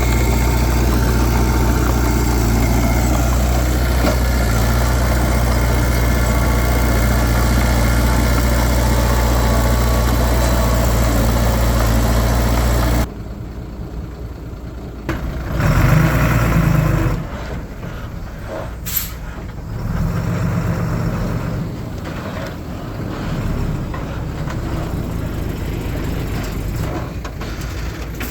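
Heavy diesel engine running loud and steady. It cuts off suddenly about halfway through, giving way to quieter engine sound with a brief surge and a short high hiss.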